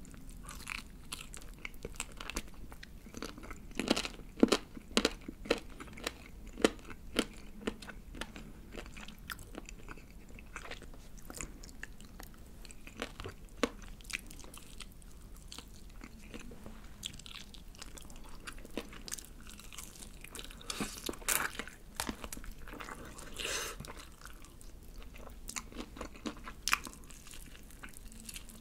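Close-miked chewing and biting of sauce-coated (yangnyeom) fried chicken: crisp crunches of the coated skin, thickest about four to seven seconds in and again around twenty-one to twenty-four seconds.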